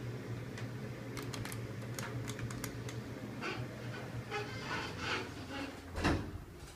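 Dover elevator car running with a steady low hum, with a run of light clicks and rattles and one heavy thump about six seconds in.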